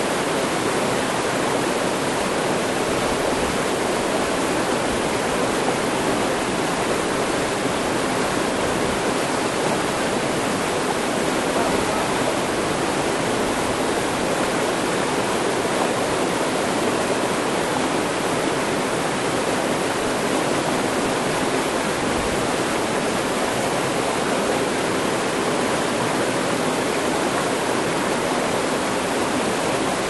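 Small waterfall on a mountain stream, white water pouring over a rock ledge into a pool with a steady, even rushing.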